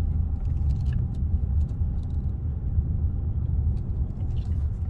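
Car driving at low speed, heard from inside the cabin: a steady low rumble of engine and tyre noise, with a few faint clicks.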